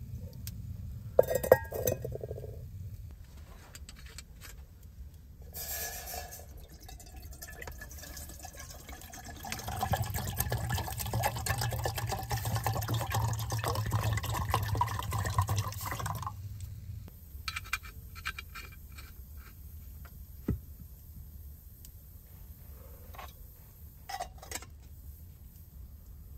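Water poured into a metal kettle, a steady stream running for about six seconds as the kettle fills. Before it, sharp metal clinks about a second in; afterwards a few lighter clinks and knocks.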